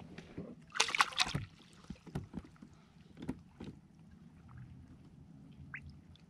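Handling noises on a fishing kayak: a quick cluster of sharp knocks and clatter about a second in, then a few lighter knocks, over a faint steady low hum.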